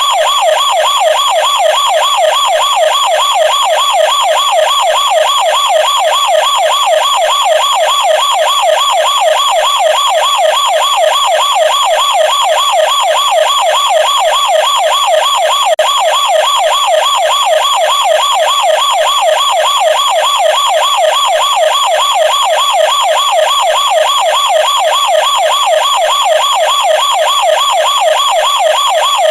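Plastic toy police car's electronic siren sounding continuously: a high, fast warble whose pitch swings up and down several times a second, steady and unbroken.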